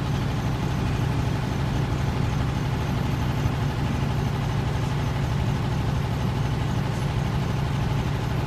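Heavy diesel engines of earth-moving machinery, an excavator and trucks, running steadily with a low, even drone.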